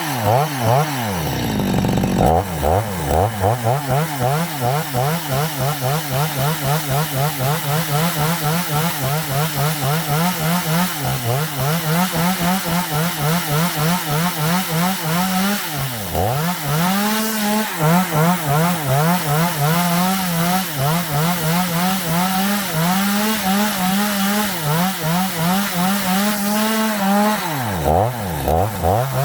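Chainsaw engine running at high revs while cutting wood, its pitch wavering rhythmically under load. It dips sharply and picks up again near the start, about halfway through, and twice near the end.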